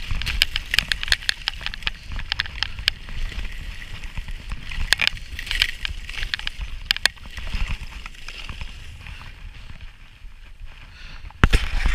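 Skis running and scraping over firm groomed snow, with many short crunching clicks from the edges, over a steady low wind rumble on the microphone. Near the end the sound turns suddenly louder.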